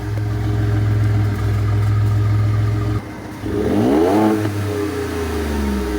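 Ford F-150's 2.7 EcoBoost twin-turbo V6, exhaust straight-piped at the mid pipe, idling warm, then revved once about three and a half seconds in, the pitch climbing and falling back to idle.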